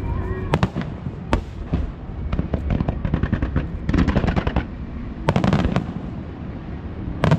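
Aerial fireworks bursting: single sharp bangs, with several runs of rapid crackling in between.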